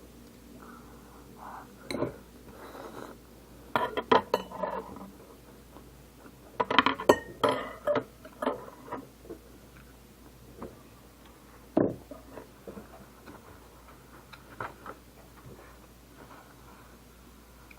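Cutlery clinking and scraping against a dish while the last of the egg and ketchup is scooped up. It comes in short bursts of sharp clicks, busiest about four and seven seconds in, with one louder knock near the end of the busy part.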